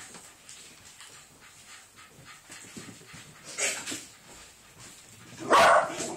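Kittens mewing during play, faint at first, with a short louder call about three and a half seconds in and the loudest, a brief cry, about five and a half seconds in.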